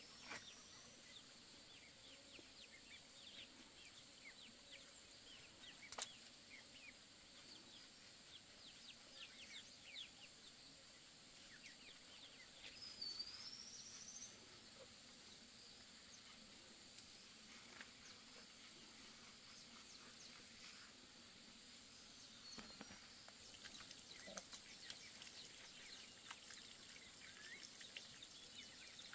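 Near silence: faint outdoor ambience with a steady high hiss, a single short rising bird chirp about halfway through, and scattered small ticks.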